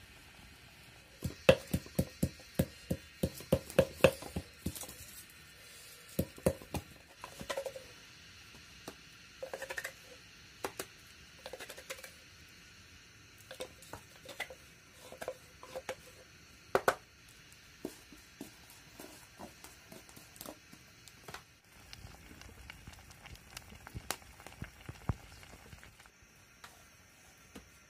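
Utensils knocking and clinking during cooking at a wood-fire hearth: a quick run of sharp knocks, about three a second, in the first few seconds, then scattered knocks and clinks, one louder about two thirds of the way through, over a faint steady hiss.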